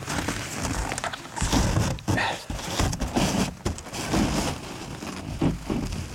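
Footsteps crunching through snow, an irregular run of crunches.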